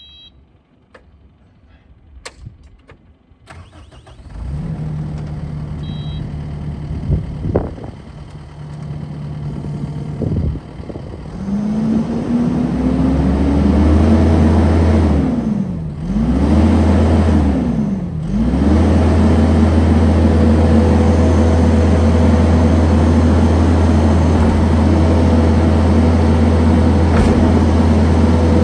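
Kubota SVL75-2 tracked skid steer's diesel engine starting about four seconds in after a few faint clicks, then idling. Around twelve seconds in it is throttled up; its revs dip and recover twice, then it holds at a steady high speed.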